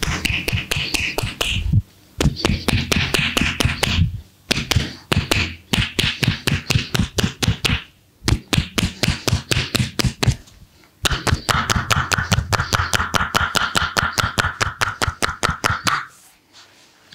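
Hands rapidly striking a body in a percussive massage, about five or six sharp slaps or chops a second, in runs of a few seconds with brief pauses, stopping shortly before the end.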